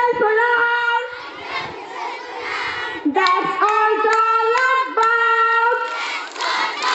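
A large group of children chanting an action rhyme together in a sing-song, drawing out long held notes. The chant breaks into louder group shouting near the end.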